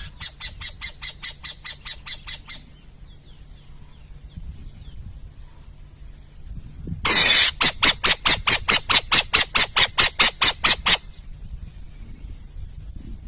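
Owl calling: a rapid series of harsh, noisy notes, about five a second, in two bouts, the second opening with a loud burst about seven seconds in.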